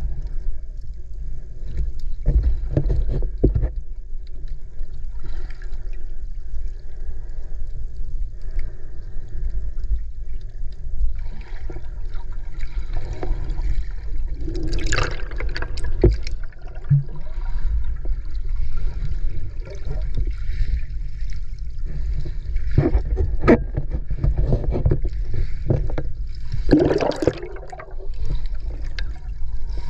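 Water moving around a camera held underwater: a steady low rumble, with louder rushes of water and bubbles a few seconds in, around the middle, and near the end.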